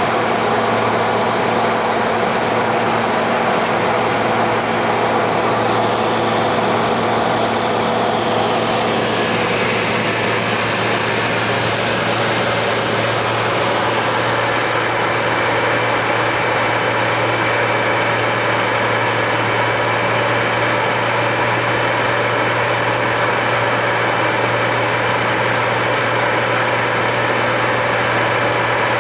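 Cessna floatplane's engine and propeller droning steadily, heard from inside the cabin while the plane descends low over the lake on final approach to a water landing. The tone shifts about nine seconds in, then holds steady.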